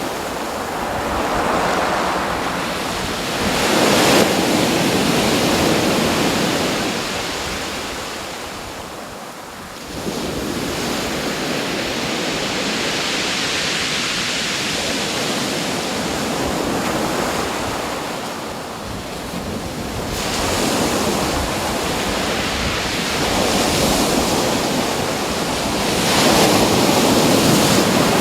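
Ocean waves breaking and washing ashore, the rush swelling and easing every few seconds, with a short lull about nine seconds in before the next wave breaks. Wind buffets the microphone underneath.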